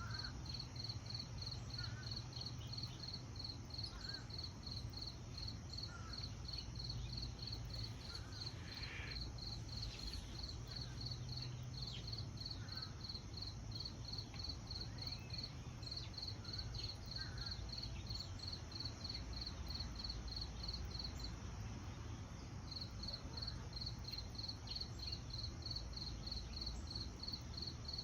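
A cricket chirping in an even rhythm, about three high chirps a second, with one short pause about three-quarters of the way through. Behind it run a steady high insect hum and a few faint bird chirps.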